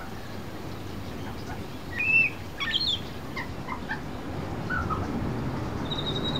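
Pied butcherbird singing a run of short, clear whistled notes, some gliding up or down, with a quick flurry about two to three seconds in and a higher held whistle near the end, over a steady hiss of rain.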